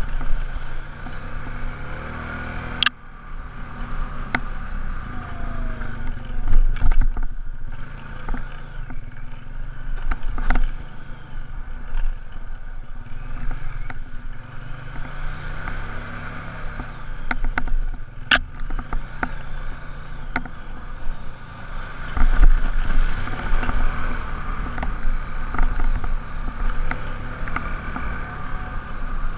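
ATV engine running as the quad rides a rough trail, splashing through water near the start, with gusty wind rumble on the microphone. Two sharp knocks from the machine jolting over the ground, one a few seconds in and one past the middle.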